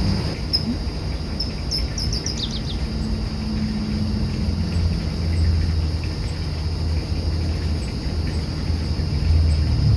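Crickets trilling steadily at dusk, with a few short bird chirps in the first three seconds, over a steady low rumble.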